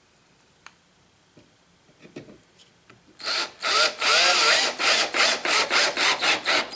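Old Craftsman 15.6-volt cordless drill driving a wood screw into a pine board, starting about three seconds in. The motor runs briefly twice, then runs for about a second, then comes in short trigger pulses about three a second as the screw is brought down flush.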